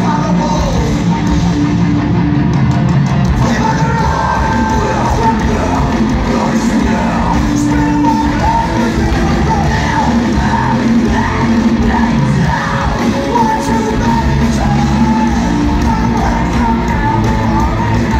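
Rock band playing loud live music in a large hall, with a singer yelling and singing over it.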